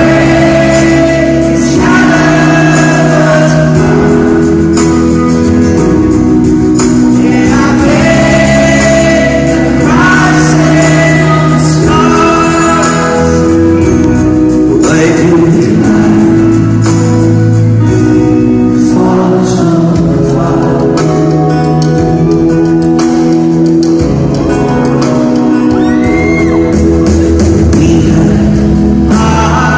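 Live pop-rock song in a large concert hall: a male lead singer over guitar and band, loud and steady throughout.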